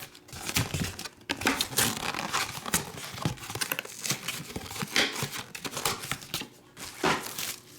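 Trading-card pack wrappers crinkling and tearing as packs are ripped open by hand: an irregular run of quick crackles and rips.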